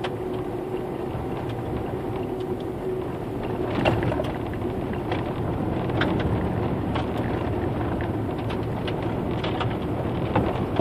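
Car driving at low speed on a rough, narrow road, heard from inside the cabin: steady engine and tyre rumble with scattered short knocks and rattles.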